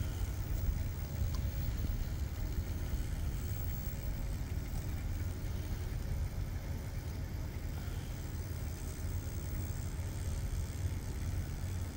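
Electric motor and geared drivetrain of a 1/24-scale SCX24 rock crawler running steadily as it climbs a rock ledge, a faint whine over a constant low rumble.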